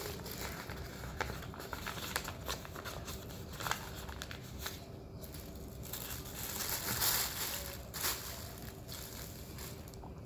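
Paper food wrapping and a thin plastic bag being handled: scattered small rustles and taps, then louder crinkling of the plastic bag a little past the middle.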